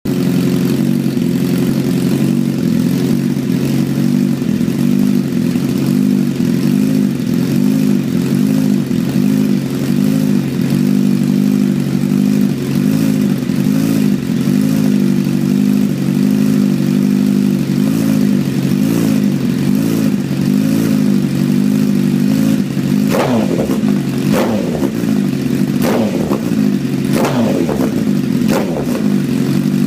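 2012 Honda CBR1000RR's inline-four engine, breathing through an Austin Racing GP Ultimate exhaust, idling steadily while warm. Near the end the throttle is blipped sharply about five times in quick succession, each rev shooting up high and dropping straight back to idle.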